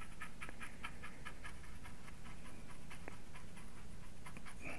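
Paintbrush dabbing acrylic paint onto hardboard in rapid light taps, several a second.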